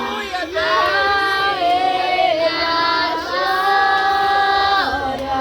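Children singing a Portuguese worship chorus, drawing out long held notes.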